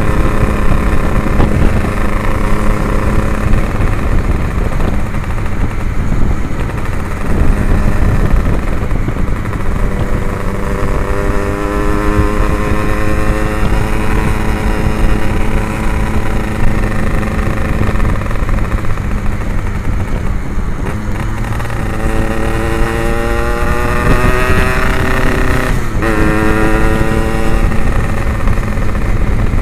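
Yamaha RX-King 135cc two-stroke single-cylinder engine, fitted with an Abbox C20 aftermarket exhaust, running under way. The engine pitch climbs twice as the bike accelerates, about ten seconds in and again about twenty-two seconds in, and drops sharply near the end.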